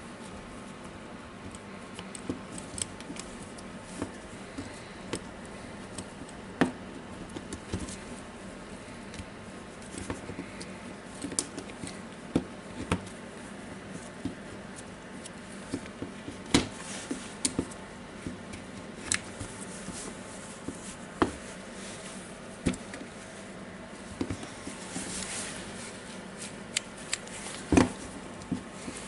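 Scattered light clicks and taps of small plastic and metal parts being handled and fitted while a cordless drill is put back together, with a brief rubbing sound near the end.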